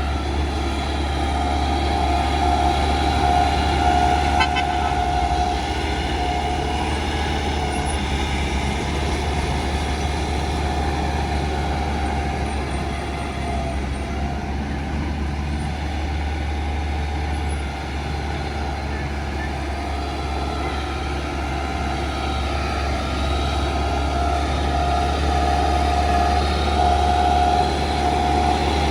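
Heavy diesel engine of a Shantui bulldozer running steadily under load, with a deep engine note and a high steady whine over it that swells twice.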